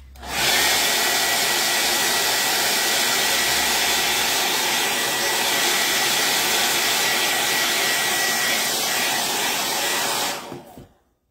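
Handheld hot-air dryer blowing on freshly applied chalk paste to dry it: a loud, steady rush of air with a thin high whine. It switches on just after the start and cuts off about a second before the end.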